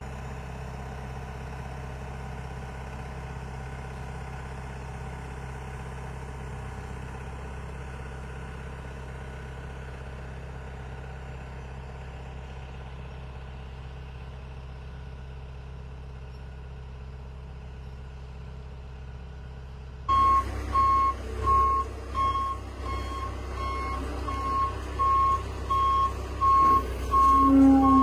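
A heavy work vehicle's engine runs steadily. About twenty seconds in, the sound changes suddenly to a reversing backup alarm beeping about once a second over the engine, as a machine backs up.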